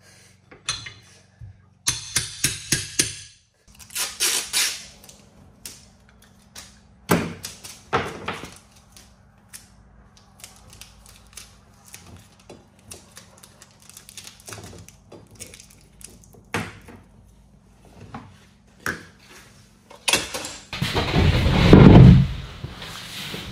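Taps, knocks and clatter of hand tools working OSB sheathing panels, with short rattling scrapes. About three seconds before the end comes a louder, deeper scraping rumble as a sheet is pushed into place against the wall.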